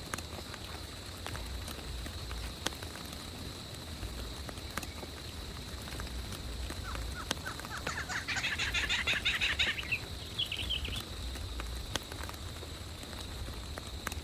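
Rain falling in a forest, with scattered drop ticks and a low rumble of wind, over a thin steady high tone. About seven seconds in, an animal gives a rapid trilling call of about three seconds, followed by a brief second call.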